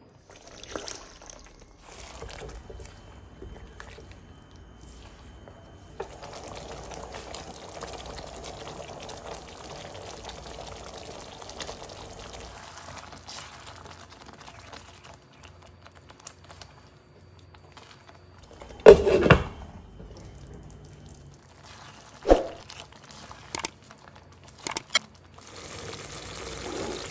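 Thick curry sauce being stirred with a spatula in a nonstick pan as it simmers, with wet squelching and bubbling. A few sharp, loud knocks come about two-thirds of the way through.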